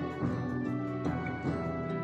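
Background music, with new notes starting about twice a second.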